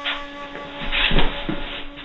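A person thrown down onto a foam training mat, landing with a heavy thud a little after a second in and a smaller knock about half a second later, with cloth rustling and scuffing. A held shakuhachi flute note plays faintly underneath.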